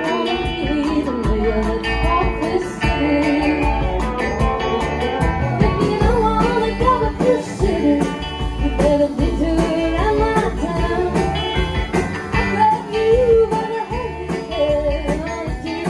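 Live country band playing: a woman sings lead over a hollow-body electric guitar, an upright bass and a drum kit keeping a steady beat.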